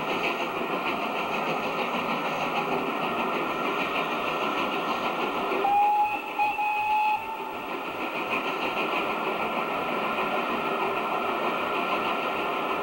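A steam locomotive hauling a passenger train runs past with a steady rumble of train noise. About halfway through, its whistle sounds once for just over a second, with a brief break in the tone.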